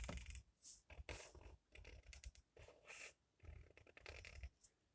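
Faint scratching of a felt-tip marker colouring on paper, in short, irregular strokes.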